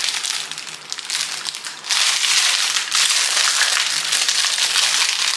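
Sealed plastic cookie wrapper crinkling as it is handled, a dense crackle that grows louder about two seconds in.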